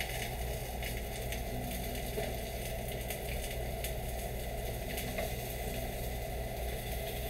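Trumpet mushroom pieces frying in olive oil in a pan, a steady sizzle over a low hum, with a few light clicks and scrapes from a wooden spoon stirring vegetables in a skillet.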